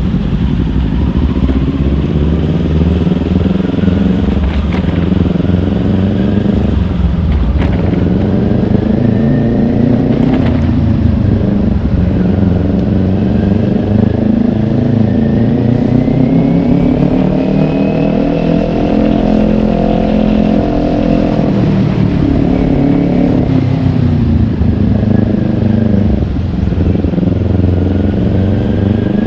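Kawasaki Ninja 400 parallel-twin motorcycle engine under way, its revs rising and falling several times with brief dips between, including one long steady climb in the middle.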